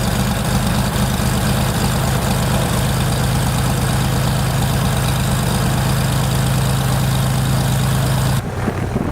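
Cessna 182's piston engine running steadily at idle with an even, fast pulse, on its first run after sitting for 15 years. About eight seconds in the sound changes abruptly to a duller, quieter engine sound.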